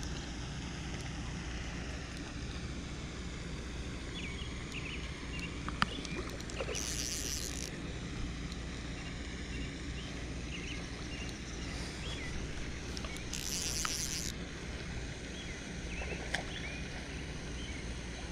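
Outdoor pond-side ambience: a steady low rumble, with two short high-pitched buzzes about six seconds apart and a few faint clicks.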